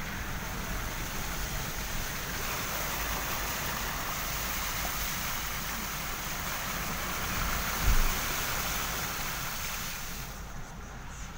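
Car tyres ploughing through shallow floodwater: a steady rushing hiss of spray that dies away about ten seconds in as the car leaves the water. There is a dull thump about eight seconds in.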